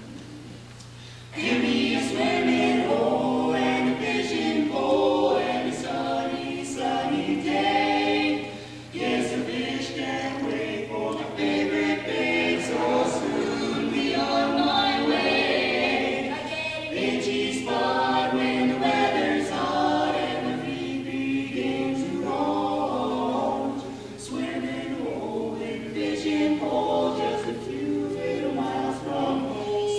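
Barbershop quartet singing a cappella in four-part close harmony: a man's bass under his sons' voices, the two younger boys' unbroken voices on tenor and lead. The singing starts about a second and a half in, after a short quiet pause.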